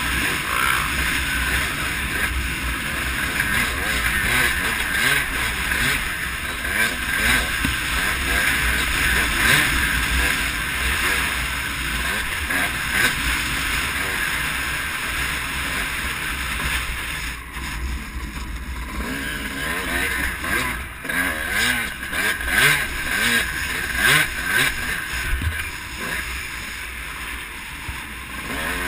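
Honda CR250R two-stroke dirt bike engine under way, its pitch rising and falling with the throttle, with heavy wind rumble on the microphone.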